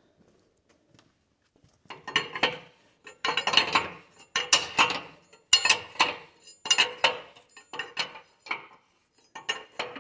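A ratchet wrench being worked back and forth on a bolt, giving a burst of metallic clicking with each stroke, about a dozen strokes starting about two seconds in.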